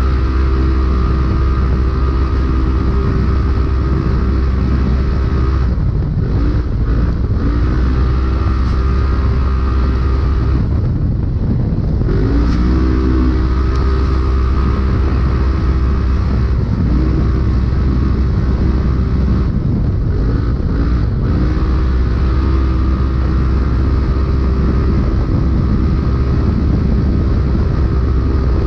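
Polaris UTV race engine running hard at high, steady revs, heard from inside the car over a steady rush of noise. The throttle briefly lifts about 6, 11, 17 and 20 seconds in, and each time the pitch dips and then climbs back.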